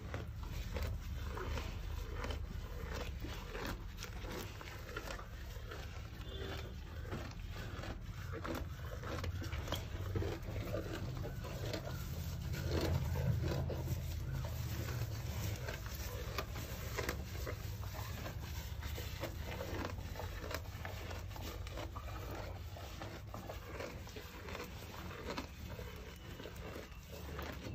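Cattle chewing and tearing fresh green grass: steady rasping and crunching with many small crackles. A low rumble swells and fades around the middle.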